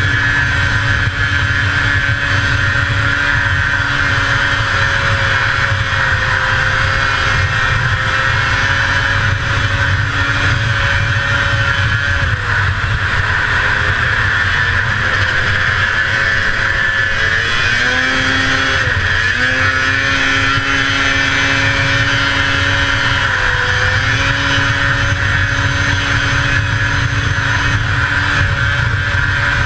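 A 1981 Arctic Cat El Tigre 6000's 500cc two-stroke engine running hard under racing throttle, with a steady rush of wind over the microphone. The engine note sags briefly three times in the second half as the throttle is eased and then picks back up.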